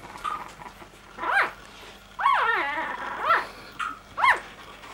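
Newborn American Staffordshire Terrier puppy squeaking: short high-pitched cries that rise and fall in pitch, one about a second and a half in, a quick run of three or four around the middle, then two more near the end.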